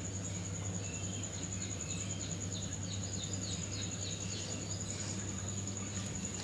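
A steady high insect trill over a low steady hum, with a run of short high chirps, about four a second, through the middle.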